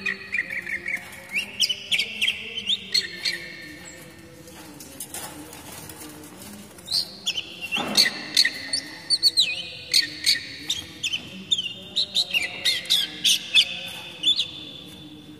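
Oriental magpie-robin (kacer) singing a fast, varied run of sharp whistles and chirps. The song thins out for a few seconds in the middle and picks up again about seven seconds in.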